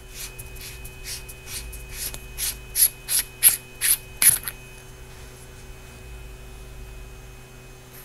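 Tail cap of a Nitecore MH27 flashlight being unscrewed by hand, its threads ticking and rubbing at about three clicks a second. The clicks grow louder and stop about four seconds in as the cap comes free.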